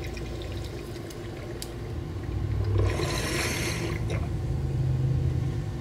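Water bubbling and gurgling in a mason-jar bong as a hit is drawn through it, the jar filled high with water from melted ice. A brief airy rush comes about three seconds in as the bowl slide is pulled and the chamber is cleared.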